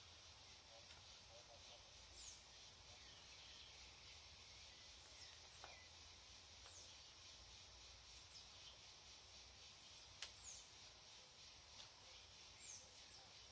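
Near silence outdoors: a few soft, sharp snips of bonsai pruning scissors cutting twigs, the clearest about ten seconds in, over a faint steady hiss with scattered small bird chirps.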